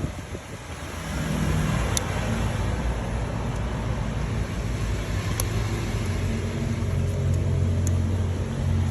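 Car engine idling with a steady low hum that grows louder about a second in.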